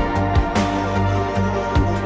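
Instrumental background music with a steady beat and sustained notes.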